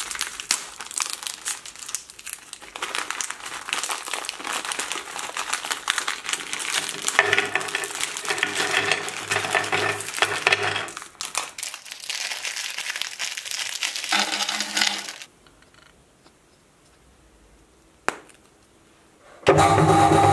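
Plastic biscuit-packet wrappers crinkling and tearing open, with a clatter of biscuits tipping out onto a plastic plate. After a quiet pause, a loud steady drone with several held tones starts near the end.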